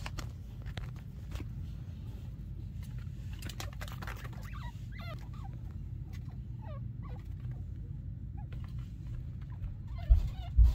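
Chinchilla squeaking: runs of short, high chirps, each falling quickly in pitch. A low rumble runs underneath, and a couple of loud low thumps come near the end.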